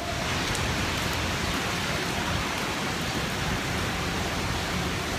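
Steady hiss of rain falling on wet pavement.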